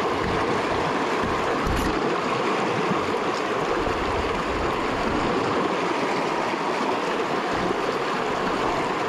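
Shallow freestone stream running steadily over rocks, with water rushing and babbling around the wading angler.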